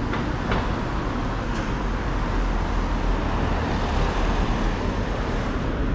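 City street traffic: a steady hum and rumble of passing cars, with a couple of brief clicks near the start.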